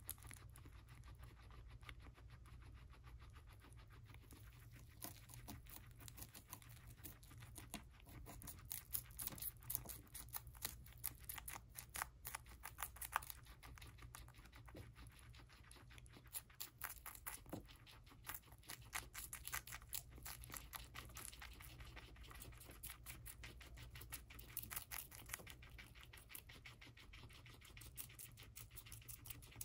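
Two guinea pigs biting and chewing celery stalks: rapid crisp crunching clicks, sparse at first and coming thick and fast from about five seconds in.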